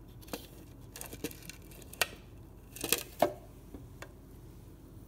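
Scattered light clicks and knocks from handling the clear plastic water tank of a Nespresso coffee maker, with a cotton swab tapping against its plastic. The loudest knocks come about two and three seconds in.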